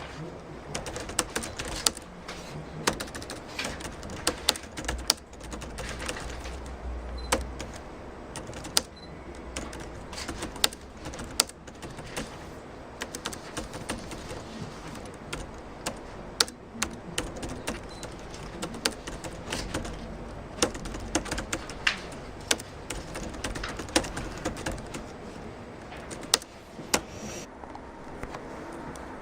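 Typing on the Galleria VF-HG's keyboard: an irregular run of key clicks, several a second at times, with some strokes louder than the rest.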